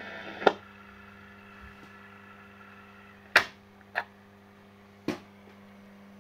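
Handling clicks from a vintage Riviera suitcase record player. A loud switch click about half a second in cuts the music off. Then comes a low steady hum, with three more sharp clicks as the tonearm is lifted and swung over the record.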